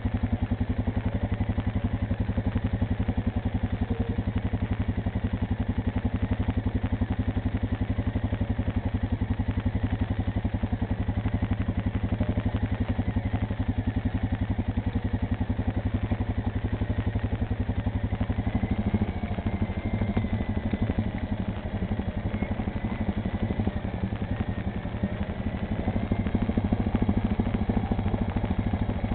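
ATV engine running with a steady, even exhaust pulse. The note shifts and eases off a little about two-thirds of the way through, then picks up again near the end.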